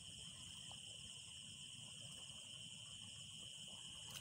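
Faint night chorus of crickets and other insects: several steady high trills layered together, one of them fast and pulsing.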